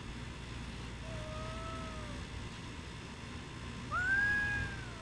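Cat meowing twice: a faint, slightly falling meow about a second in, then a louder, longer meow near the end that rises quickly and holds.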